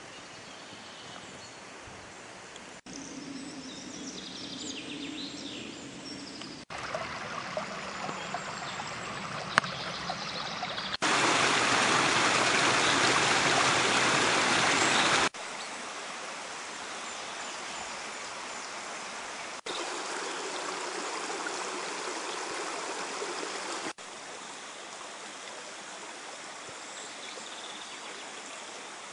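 A small woodland stream running and splashing over rocks, heard in several short clips cut together at different levels. It is loudest for about four seconds in the middle, where it tumbles down a small cascade between boulders.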